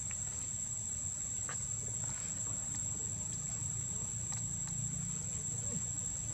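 Insects droning steadily at a single high pitch, over a low steady rumble, with a few faint scattered clicks.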